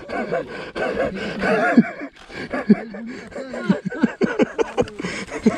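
People laughing hard, in short bursts that rise and fall in pitch.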